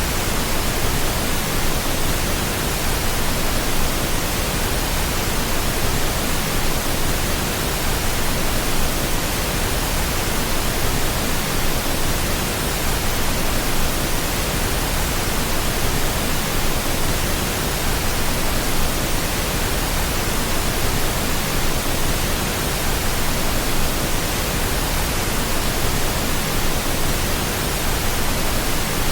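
Steady pink noise, an even, unbroken hiss that holds the same level throughout.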